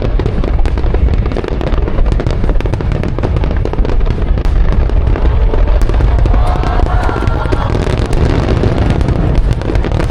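Aerial fireworks going off in rapid succession: a continuous rumble of booms with dense crackling.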